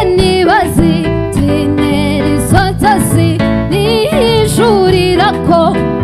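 Live band music: a woman singing with a wavering pitch over electric bass guitar, drum kit and keyboard.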